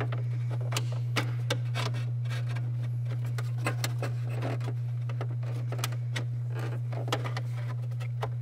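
Plastic dash trim panel being worked into place: a run of irregular clicks, taps and rubs as its hooks and clips are pushed in, over a steady low hum.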